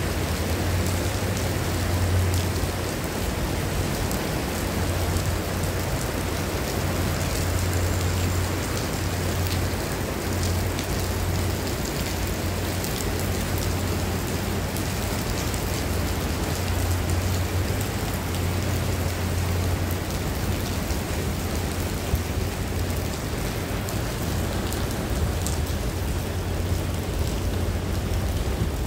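Heavy rain pouring steadily onto wet paving and foliage, with a dense patter of drops and a steady low rumble underneath.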